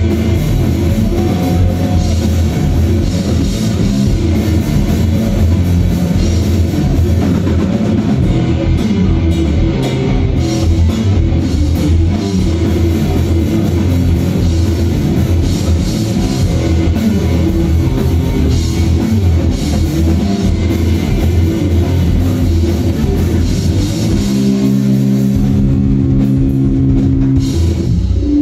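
Live rock band playing loud: electric guitar, bass guitar and drum kit. About 24 seconds in the drums stop and a chord is held, ringing out until near the end.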